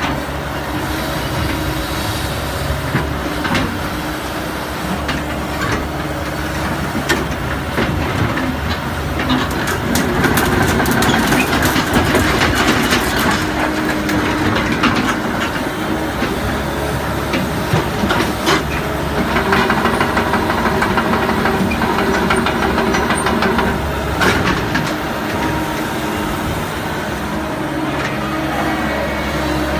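Sumitomo S265 crawler excavator's diesel engine running under load while the machine slews and travels, with its steel tracks clanking and rattling and the hydraulics working. The clatter gets louder and busier about a third of the way in and again past the middle.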